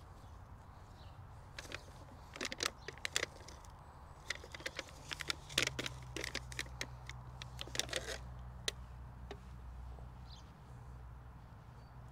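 Hands squeezing seedlings out of a flexible black plastic module tray and pressing them into soil: a scattering of short crackles and rustles from about two seconds in until near the end.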